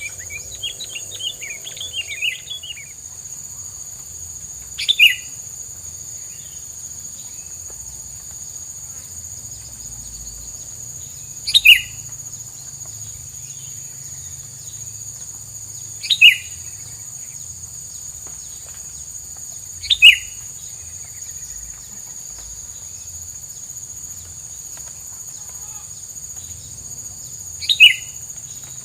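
Tilang bird calling: a quick chattering run at the start, then five loud, sharp calls, each sliding down in pitch, spaced several seconds apart. A steady high-pitched insect-like whine runs underneath.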